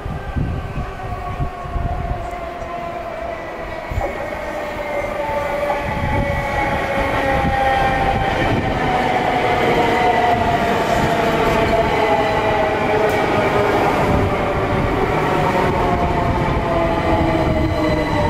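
Electrostar electric multiple unit arriving and braking. Its traction motors whine in several tones that fall steadily in pitch as the train slows, over wheel and rail rumble, growing louder as it comes in.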